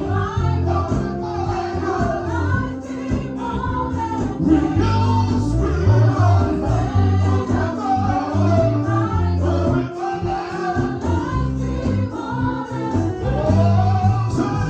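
Gospel praise music played live: a group of singers carrying a revival song over a band with strong bass and drums.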